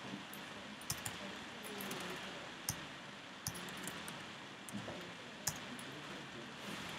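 Slow typing on a computer keyboard: scattered sharp key clicks, roughly one a second, over a steady faint hiss.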